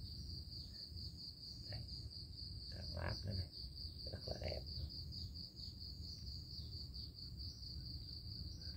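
Insects chirping in a steady high-pitched trill, with a few faint handling knocks.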